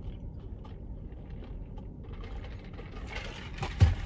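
Handling noises in a car: small clicks and rustles over a low steady rumble, then one loud thump just before the end.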